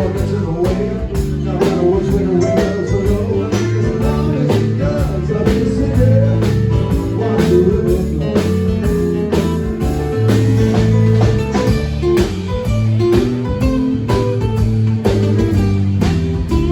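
Blues-rock band music: guitar over a steady drumbeat of about two beats a second.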